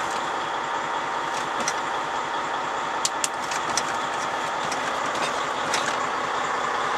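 Volvo 880 semi-truck's diesel engine idling steadily, heard from inside the cab, with a few light clicks.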